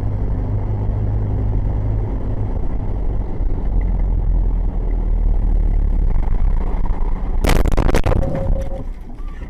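Steady engine and road rumble from inside a car in traffic, then a sudden loud crashing clatter lasting about half a second near the end, which fits a collision with the dump truck alongside, with a brief tone just after.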